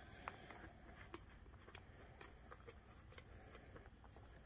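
Near silence, with a few faint, irregular light clicks and taps as the loaded rubber-coated rock tumbler barrel is handled.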